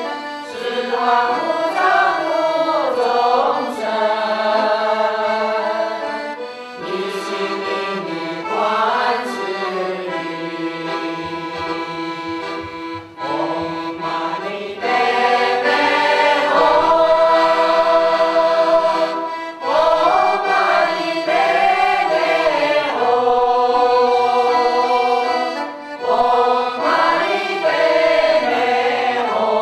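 Mixed choir singing in unison with piano accordion accompaniment, holding long notes in phrases with brief breaks between them.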